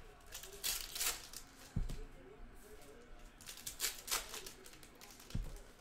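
Panini Hoops basketball trading cards being shuffled and flicked through by hand, in two bursts of quick crackly snaps, with two low thumps between them.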